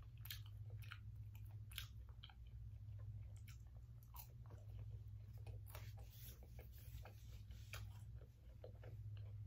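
Faint close-up biting and chewing of a breaded McDonald's Spicy Chicken McNugget: a string of crisp crunches and mouth clicks over a low steady hum.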